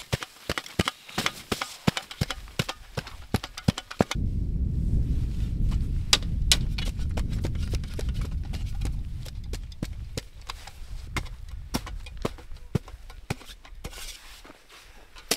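Small snow shovel chopping and scraping into packed snow, a quick run of crunchy strikes. About four seconds in, a low rumble comes in and the strikes continue more sparsely, fading near the end.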